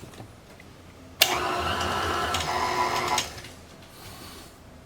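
Electric stand mixer running for about two seconds, starting about a second in and then switching off, as it mixes thick cookie dough.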